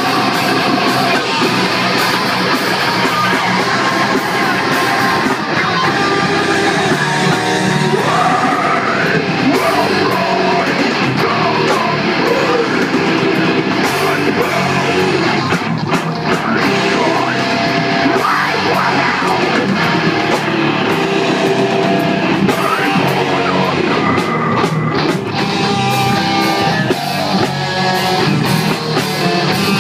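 Heavy metal band playing live: distorted electric guitars, bass and drum kit, with a vocalist singing into a microphone over it. Loud and continuous throughout.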